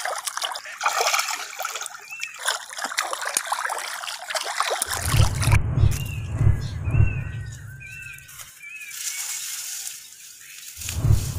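A big fish thrashing in shallow water as a man grabs it by hand, splashing and sloshing. About five seconds in, music with a heavy pulsing bass beat comes in, drops out briefly, and returns near the end.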